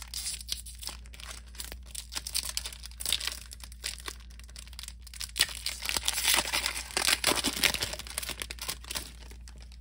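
Foil wrapper of a trading-card booster pack crinkling and tearing as it is ripped open by hand, in irregular crackling bursts that are loudest about five to eight seconds in.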